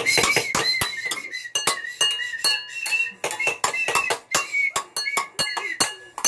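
Hard objects being struck together again and again in quick, irregular clinks, each leaving a short, high, glassy ring.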